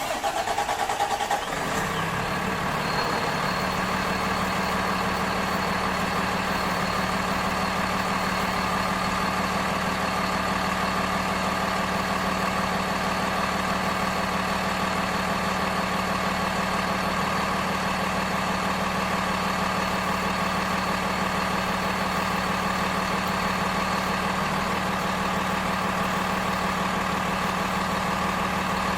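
A vehicle engine idling steadily: a constant, unchanging drone with a thin high whine above it. It settles in about a second in.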